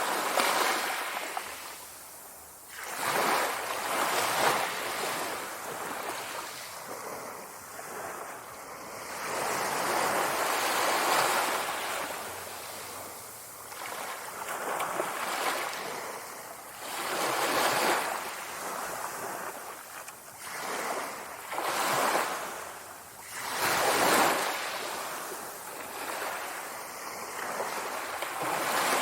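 Sea waves breaking and washing back, the surf swelling and fading every few seconds.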